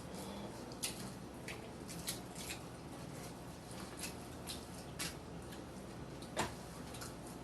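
Eating noises: soft, irregular wet clicks and smacks of chewing and lip sounds, one a little louder near the end.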